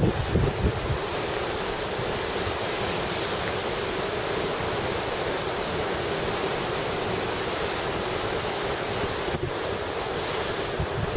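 Storm surf on a sea made rough by a typhoon, a steady, even wash of breaking waves, with wind buffeting the microphone in the first second.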